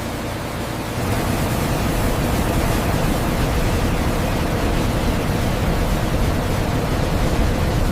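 Steady, even rushing noise of flour-mill machinery running, stepping up in level about a second in.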